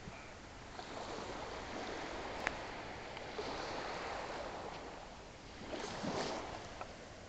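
Small sea waves breaking and washing up the sand, a steady hiss of surf that swells louder about six seconds in. A brief click about two and a half seconds in.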